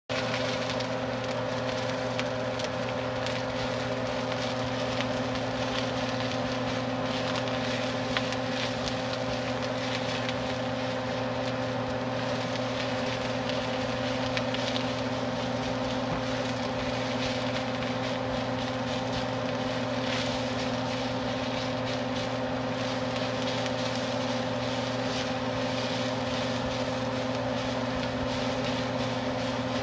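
A steady mechanical hum with several constant low tones under an even rushing noise and faint crackling, unchanging throughout.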